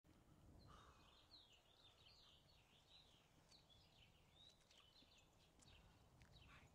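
Near silence, with faint birds chirping in a string of short, quick calls.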